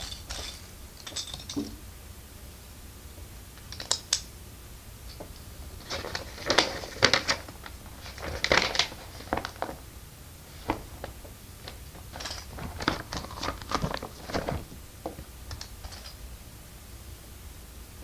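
Plastic LEGO bricks being handled, sorted and pressed together: irregular clusters of small clicks and clatter.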